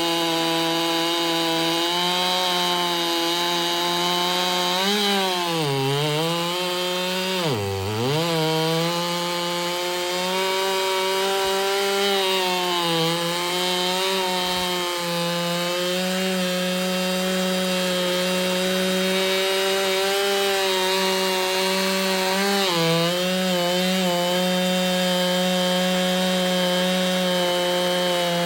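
Ported Husqvarna 395 chainsaw running at full throttle, cutting through wood in a milling cut. Its pitch dips sharply under load and recovers about five and eight seconds in, and again briefly near twenty-three seconds.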